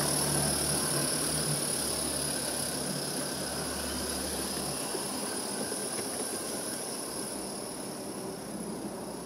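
Five coupled G scale live-steam locomotives running on the track and moving away into a tunnel: a low running rumble fades out about five seconds in, over a steady high hiss.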